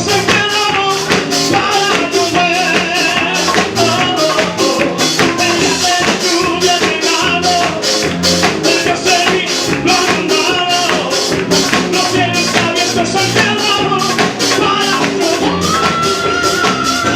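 Evangelical praise song played loud, with a fast, steady beat of percussive strokes under the melody.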